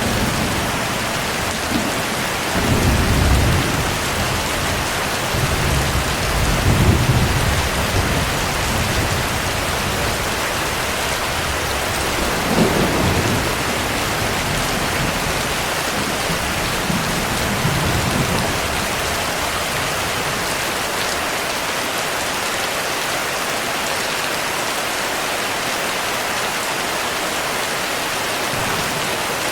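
Heavy, steady rain with rolls of distant thunder: low rumbles about 3 and 7 seconds in, a sharper clap about 13 seconds in and a fainter roll near 18 seconds, then rain alone.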